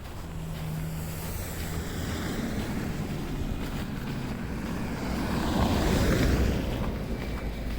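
A road vehicle passing by, its rushing tyre and engine noise swelling to a peak about six seconds in and then fading.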